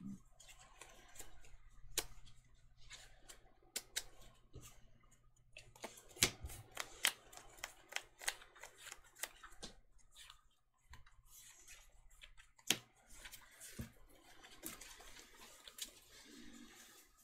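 Faint shuffling and handling of sleeved Magic: The Gathering card decks: a rustle of plastic-sleeved cards with many scattered sharp clicks and taps.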